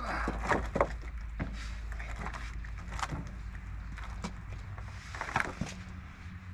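A motor running steadily with a low hum, under scattered knocks and clunks.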